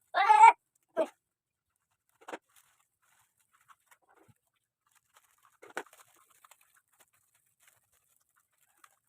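Short animal calls: one loud call right at the start, then a few fainter ones spread out over the next several seconds.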